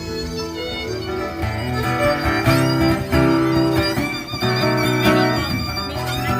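Live instrumental music: a held melody line over plucked strings and repeated bass notes.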